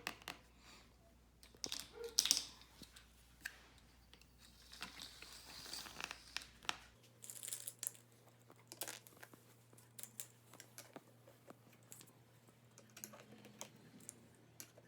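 Plastic lids being pushed onto popsicle mould cups one after another: scattered light clicks and plastic rustling.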